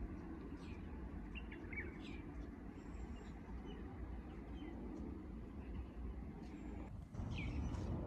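Small birds chirping in short, scattered calls over a steady low rumble of distant city traffic. The rumble gets abruptly louder near the end.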